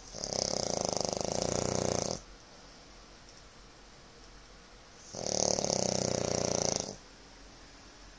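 A man snoring: two long buzzing snores of about two seconds each, the second starting about five seconds after the first.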